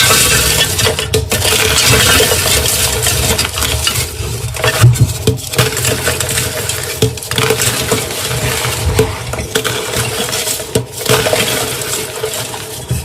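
Blocks of dyed gym chalk being crushed and crumbled, a dense run of dry crunching and crackling with gritty clinks, broken by a few brief pauses.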